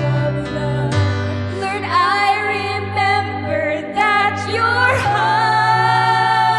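Worship song: a voice sings a slow, held melody over a sustained accompaniment. The bass note shifts down about a second in and up again about five seconds in.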